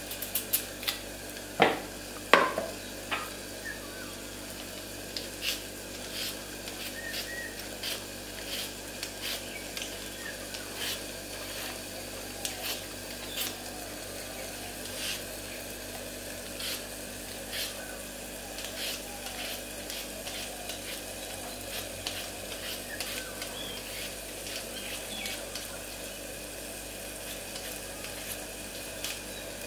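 A potato is scraped over and over against a hand-held plastic peeler-grater, in short irregular strokes, with potato strips dropping into a bowl. There are two louder knocks about two seconds in, over a steady background hum.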